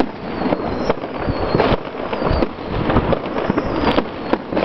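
Aerial fireworks going off in rapid succession: many overlapping bangs and dense crackling, with a few high whistles.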